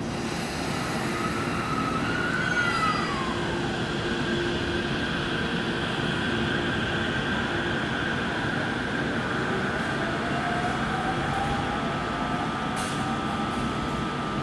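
Electric train running at the platform: a continuous rumble of wheels on rail, with the motor inverter's whine rising and then falling in the first few seconds, and another whine slowly rising near the end.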